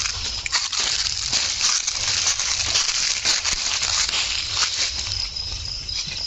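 Footsteps crunching and crackling through dry fallen leaves, with a steady high-pitched drone of night insects behind.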